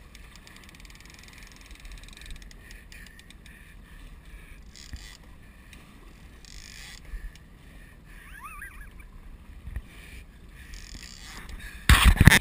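Faint steady wind and sea noise aboard a small boat at sea. A few loud bursts of noise come near the end.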